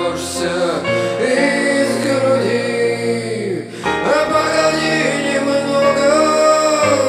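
Background music: a song with a sung vocal over instruments, the voice holding long notes.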